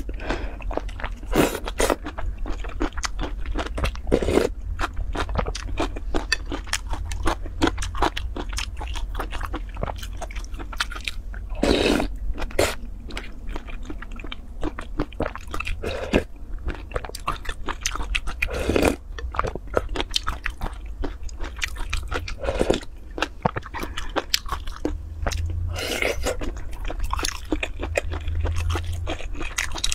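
Close-miked eating of spicy noodle soup: continuous chewing and biting with wet mouth clicks and smacks, and louder slurps every few seconds.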